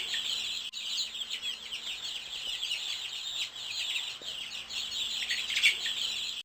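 Dense chorus of many small songbirds chirping and trilling at once, calls overlapping continuously with no pause.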